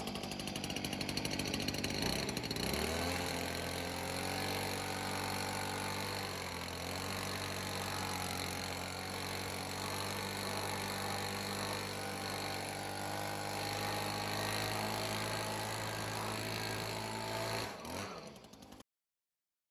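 Wood-Mizer portable band sawmill running with its blade cutting a black walnut log: a steady engine tone with hiss over it, rising in pitch about two to three seconds in and then holding steady. It cuts off abruptly near the end.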